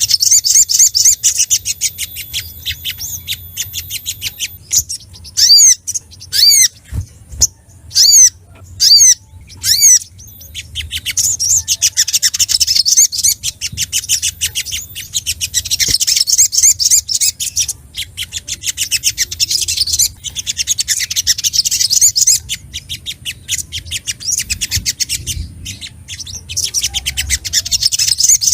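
Sogok ontong sunbird singing excitedly: long runs of rapid, high-pitched chittering, broken around a third of the way in by about six separate slurred whistles, then back to chittering. It is the agitated male song of a bird calling out a rival.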